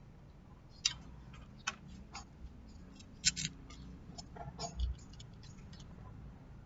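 Scattered light clicks and taps of small parts and tools being handled, a few sharper knocks among them, over a faint steady low hum.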